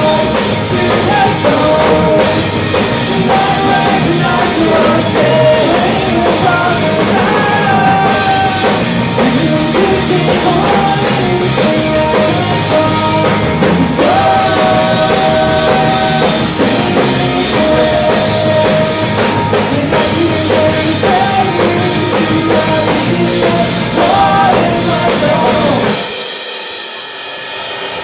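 A rock band playing live on electric guitars, bass and drum kit, with a sung vocal. The band stops about two seconds before the end, leaving a fading ring.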